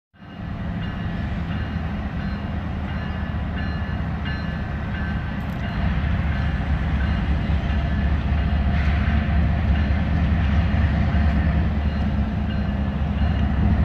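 Union Pacific diesel-electric freight locomotives working under power as the train gets moving: a steady, deep engine drone that gets louder about six seconds in.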